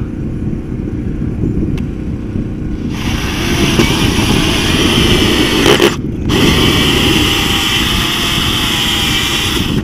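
Cordless drill driving a hole saw through an RV's sidewall. It starts cutting about three seconds in, stops for a moment a little after halfway, then bites again and keeps cutting, over a steady low rumble.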